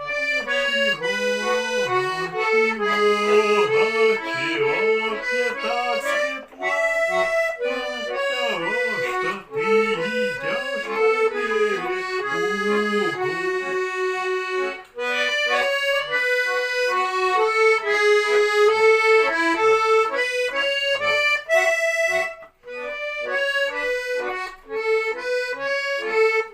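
Russian garmon (button accordion) playing an instrumental melody over accompanying chords, with brief breaks several times, as at bellows turns.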